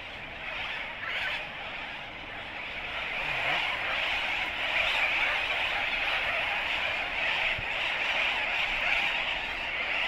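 Dense seabird colony: a steady din of many birds calling at once, swelling a little after about three seconds.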